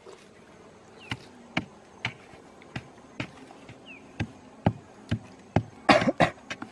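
Wooden pole jabbing and thudding into packed dry earth, about two strikes a second, with a quick loud run of strikes near the end. Bees buzz faintly underneath, from a ground nest being dug open.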